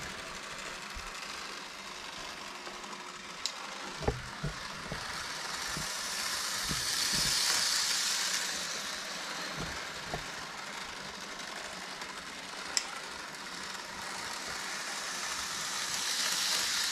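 N scale model train running on its track: a steady high whirring hiss of the small motor and wheels that swells twice as the train passes close. A few light clicks and knocks come through it.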